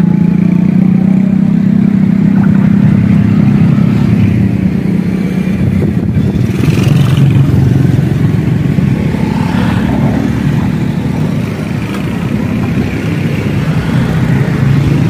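Road vehicle engine running nearby, a steady low drone with brief higher sweeps twice in the middle.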